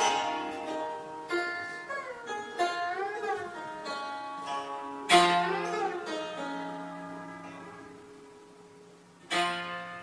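Chaozhou zheng (Chinese zither) played solo: plucked notes with left-hand pressed bends that make pitches waver and slide, strong ringing strokes at the start, about five seconds in and near the end, with the notes dying away between.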